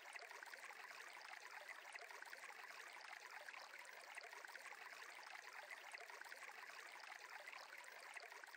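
Faint, steady sound of a flowing stream: a soft, even rush of running water.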